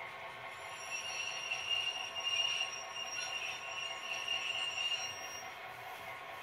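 Piko H0-scale NOHAB model diesel locomotive with a sound decoder running on the layout, its small speaker playing diesel locomotive sound. A high steady squeal rises over it from about half a second in and stops near the end.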